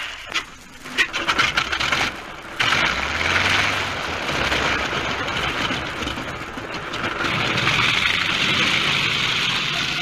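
Vintage propeller aircraft engine being started: it sputters with a few irregular pops, catches about two and a half seconds in, and then runs steadily.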